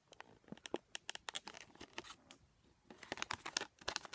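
Clear plastic toy packaging crinkling and crackling as it is handled, in quick irregular clicks, in two spells with a short lull in between.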